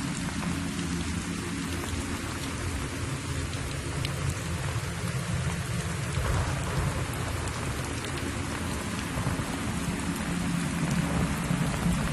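Steady hiss-like noise with a low hum underneath and a few faint ticks, rain-like in character.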